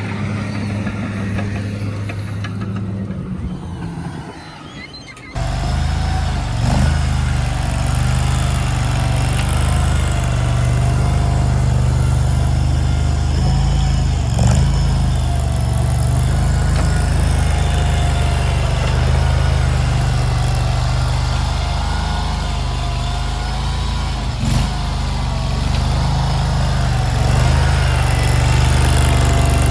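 JQ400 mini skid steer running as it works, a steady engine hum with a wavering higher whine over it and a few short clanks. The sound fades down a few seconds in, then cuts back in suddenly louder about five seconds in.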